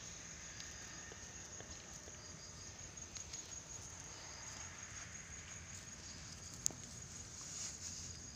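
Insects chirping steadily in a high, pulsing trill, with one sharp click near the end.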